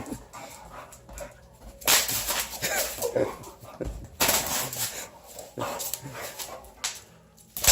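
Boxer dog barking and whining as it scrambles after a laser dot, with several bursts of scuffling and crackling from the bubble wrap under its paws.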